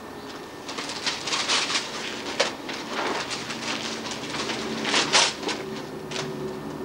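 Gift wrapping crinkling and rustling in irregular bursts as it is handled and crumpled, starting about a second in, with sharper crackles about two and a half and five seconds in.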